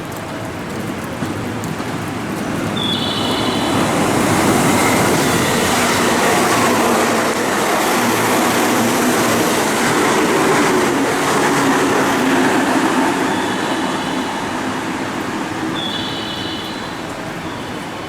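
Electric train passing along the platform, its running noise swelling over a few seconds, holding loud, then fading away near the end.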